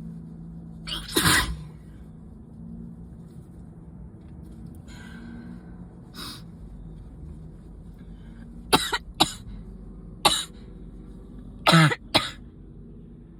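A person's sneezing fit from illness and allergies, explosive sneezes and coughs: one loud burst about a second in, then a quick run of sharp bursts from about nine seconds in, several coming in pairs.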